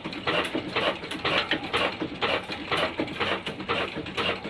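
Old Ruston Hornsby diesel engine running with a steady, rhythmic mechanical clatter of about five knocks a second.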